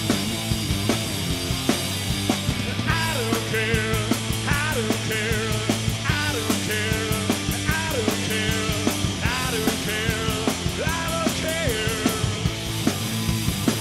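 Punk rock band playing live, with drums, electric bass and guitar, and a man singing from about three seconds in until shortly before the end.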